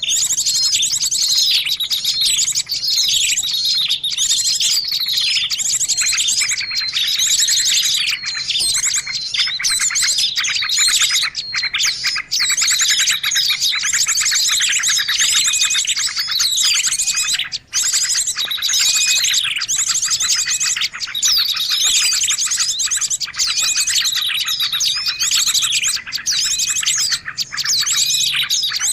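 Bird-lure recording of small songbirds chirping and trilling in a dense, unbroken chorus of many overlapping high calls, played to draw small birds in.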